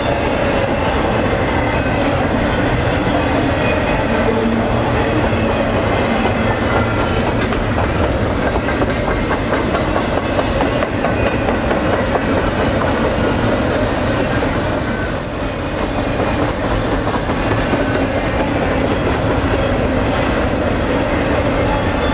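Double-stack intermodal well cars rolling past at speed: the steady rumble and clatter of steel wheels on the rails, with faint squealing tones over it.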